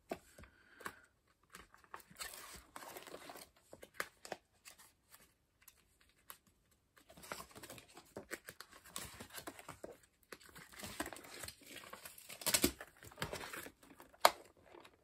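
Clear plastic binder pocket sleeves rustling and crinkling as they are handled and turned, coming and going with short quiet pauses, with small clicks. The loudest crinkling comes about twelve to thirteen seconds in.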